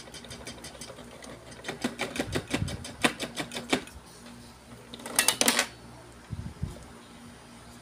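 Goliath Greedy Granny toy's plastic mechanism clicking in a quick steady rhythm, about four clicks a second. A little past five seconds in comes a short, louder run of ratcheting clicks as the granny figure is pushed back down into her chair, then a couple of soft thumps.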